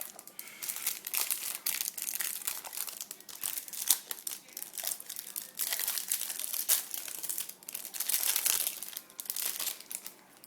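Plastic wrapping of a trading-card pack crinkling and crackling in irregular bursts as it is handled and opened.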